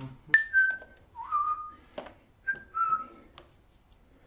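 A person whistling two short phrases of notes, one note sliding upward, with a sharp click between the phrases and another at the end.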